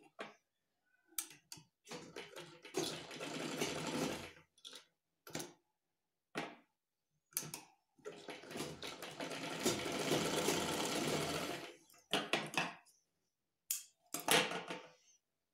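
Usha sewing machine running in two stitching runs, a short one about two seconds in and a longer one from about eight to twelve seconds, with scattered clicks of the machine and cloth between. Near the end comes a brief snip of scissors cutting the thread.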